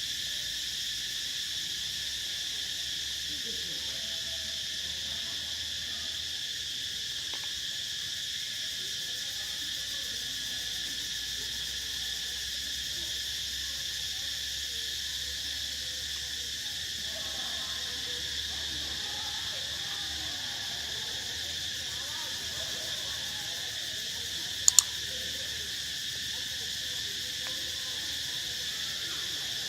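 Steady insect chorus droning at several high pitches at once, with two sharp clicks in quick succession near the end.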